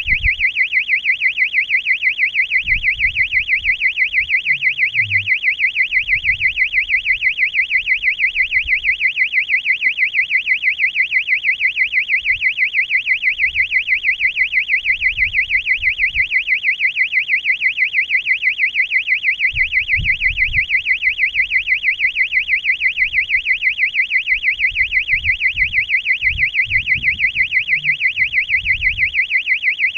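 Electronic buzzer on a high-altitude balloon payload beeping without a break, a loud high-pitched tone pulsing about two to three times a second, with faint low rumbles now and then.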